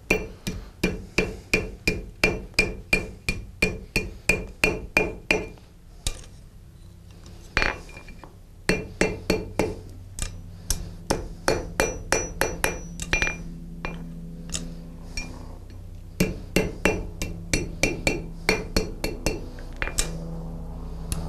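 Blacksmith's hand hammer striking red-hot iron on an anvil, forging an S-hook: runs of quick ringing blows, about three a second, with short pauses between the runs.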